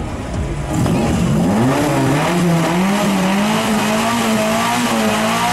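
A car engine with a loud modified exhaust revs up about a second in and is held at high revs, its pitch wavering slightly. It is being held at full noise to push up a decibel-meter reading.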